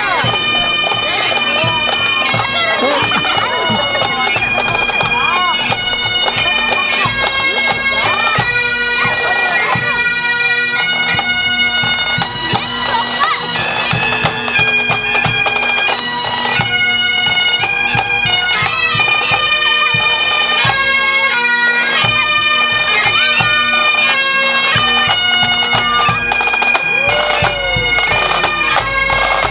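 Scottish pipe band playing a march: bagpipes sounding a tune over their steady drone, with snare, tenor and bass drums beating along.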